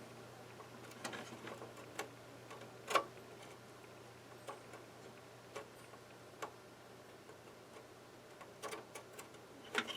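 Scattered light clicks and taps, one every second or so and a small cluster near the end, from handling an M.2 SSD and its tiny screw against a desktop motherboard, over a faint low hum.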